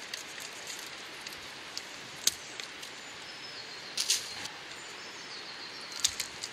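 Willow rods clicking and crackling in short sharp bursts as they are worked into a woven willow fence: a single click about two seconds in, then brief clusters around four and six seconds.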